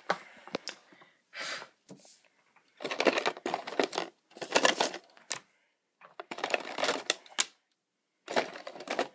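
Handling noise and clicking clatter as a marker, a pencil and a sheet of paper are set out on a wooden table. It comes in about five bursts, the longest a couple of seconds, separated by short quiet gaps.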